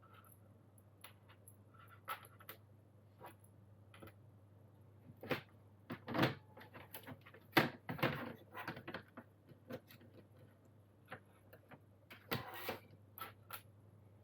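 Irregular small plastic clicks and taps as mechanical-keyboard stabilisers are assembled by hand, with stems and wires pressed into their housings. The clicks come in a busier cluster in the middle, and there is a brief scraping noise near the end.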